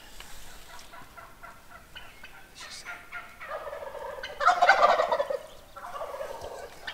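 Wild turkey gobbler gobbling: a loud rattling gobble about four seconds in, then a shorter, softer one right after, with a few brief calls before them.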